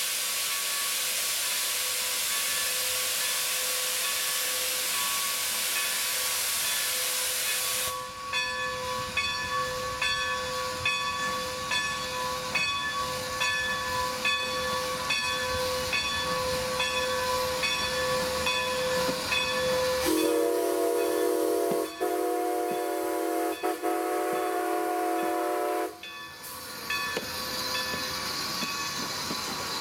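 Strasburg Rail Road No. 90, a 2-10-0 steam locomotive, working past with a loud steady hiss of steam, then a regular beat of about two strokes a second as it moves. About two-thirds of the way in, its steam whistle sounds one long blast of about six seconds, and the steam hiss returns afterwards.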